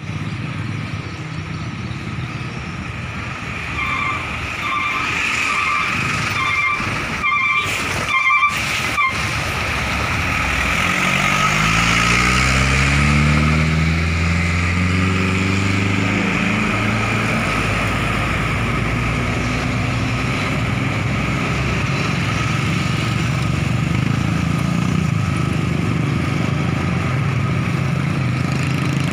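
Highway traffic, with a horn sounded in a run of short beeps for several seconds. Then a large bus's diesel engine passes close by, its note rising as it accelerates, and settles into a steady engine drone.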